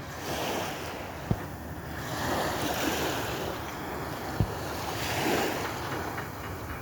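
Sea waves washing onto the shore, the surf swelling and fading every couple of seconds, with wind on the microphone. Two brief low thumps, about a second in and again past four seconds.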